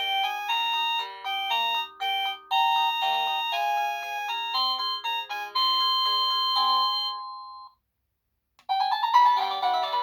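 EMASTIFF wireless doorbell receiver playing one of its polyphonic ringtones, a melody of quick electronic chime-like notes. The tune ends about three-quarters of the way through, and after a second of silence a different, busier tune starts.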